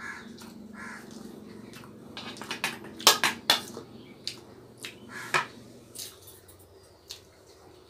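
Metal clinks and clatters of a steel bowl and its lid being handled on a table, loudest in a quick cluster about three seconds in, followed by a few lighter taps.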